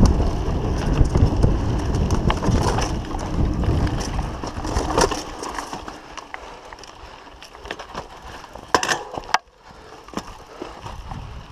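2015 Trek Fuel EX 7 full-suspension mountain bike running fast down a dirt downhill trail: a low rumble of wind and trail vibration with rattling clicks from the chain and frame. About five seconds in the rumble drops away, leaving scattered clicks and a short clatter of knocks.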